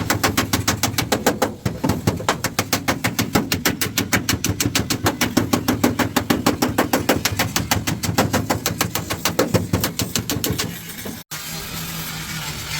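Rapid, evenly spaced knocks, about seven a second, that stop abruptly about eleven seconds in, followed by a steady hum.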